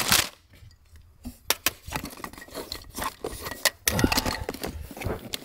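Plastic wiring-harness connectors on a throttle-pedal adapter lead clicking and rattling as they are handled, with irregular light clicks and scrapes.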